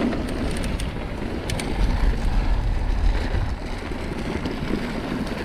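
Mountain bike descending a dirt hill at speed: wind rushing over the rider's microphone and a steady rumble of knobby tyres on dirt, with a few sharp clicks from the bike.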